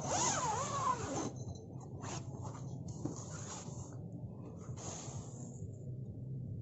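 A brief wavering tone in the first second, then a few short scratchy rasps of a tent zipper and tent fabric being pulled and handled.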